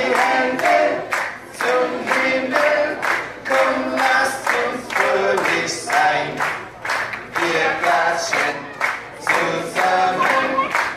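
A group of voices singing a song together, in German.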